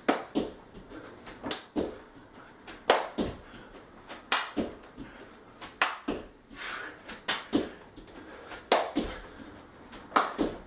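Jumping jacks on an exercise mat over a wooden floor: the feet land in rhythmic thuds, coming in quick pairs about every second and a half.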